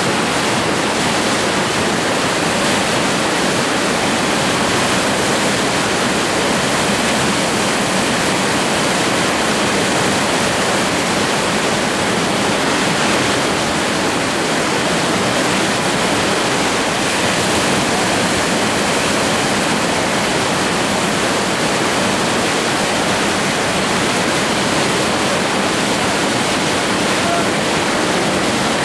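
Whitewater river rapids rushing, a loud, steady, even noise with no change throughout.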